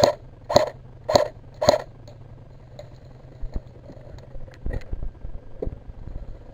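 Four single shots from an airsoft gun, about half a second apart, each a sharp crack, followed by a few fainter clicks.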